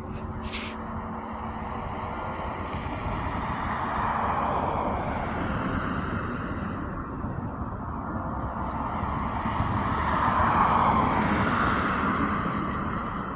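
Road traffic: a steady rushing of passing cars that swells twice, about four seconds in and again around ten seconds in.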